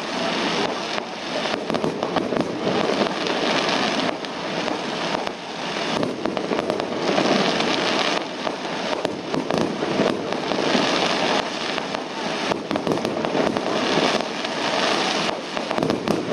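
Fireworks going off in a dense, continuous crackle of many small pops, swelling and easing every second or two.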